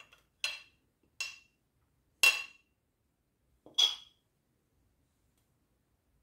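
A metal spoon clinking against a bowl four times, knocking grated parmesan cheese out of it. Each strike is a short, sharp clink with a brief ring, and the loudest comes a little after two seconds in.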